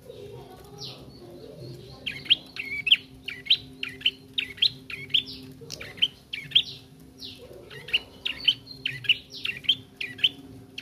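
A young prenjak trotol in a cage chirping. It is a juvenile practising its song. From about two seconds in it gives a fast run of sharp, high chirps that fall steeply in pitch, with two short breaks.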